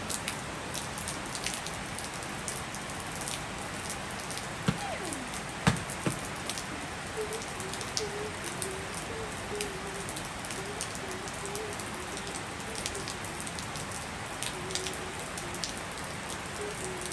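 Steady rain falling on a wet tiled rooftop, with the sharp ticks of single drops. A few louder knocks come about five to six seconds in.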